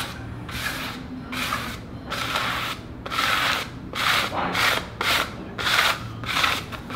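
Hand squeegee rubbed briskly back and forth over the paper transfer sheet of a vinyl floor stencil, burnishing it down onto the concrete: a quick run of scratchy rubbing strokes, about two or three a second.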